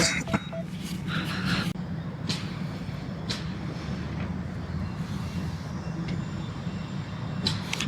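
Quadcopter drone's motors and propellers humming steadily as it comes in to land, with a few faint clicks.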